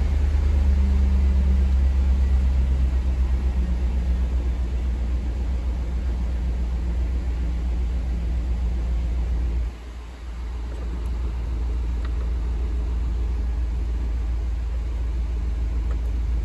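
2004 Chevrolet Tahoe's 5.3 L LM7 V8 idling steadily at about 1,000 rpm, a low, even rumble heard from inside the cab, with a brief dip in level about ten seconds in.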